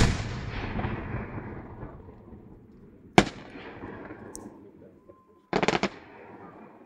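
Aerial fireworks shells bursting: a loud boom with a long echoing rumble, a second sharp boom about three seconds later, then a quick run of crackling pops near the end.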